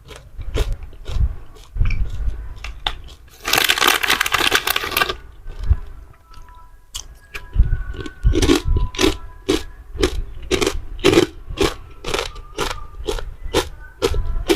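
Close-miked ASMR eating of candy snacks: a run of crunching bites and chewing, with a dense burst of crackling about four seconds in.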